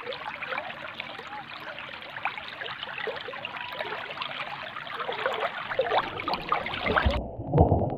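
River or stream water running and trickling, turning muffled about seven seconds in.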